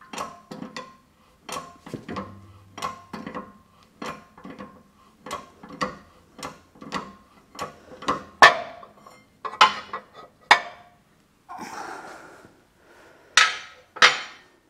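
Hammer tapping on steel, two or three ringing blows a second, with a few harder strikes and a brief scrape near the end, as a bearing is worked off an electric motor's shaft.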